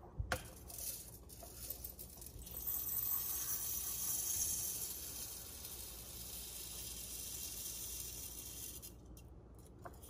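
Dry rice poured from a plastic cup into a glass jar: a steady hiss of grains streaming in and rattling against the glass. It starts about two and a half seconds in, is loudest early in the pour, then eases off before stopping near the end. A light click comes at the very start.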